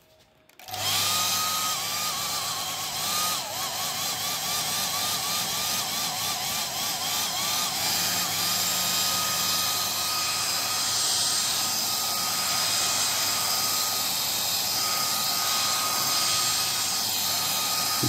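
Handheld hair dryer running steadily, blowing air onto the wet evaporator fins of a window air conditioner to dry them after washing. Its motor makes a high whine over the rush of air, starting about half a second in, and the whine wavers in pitch for several seconds.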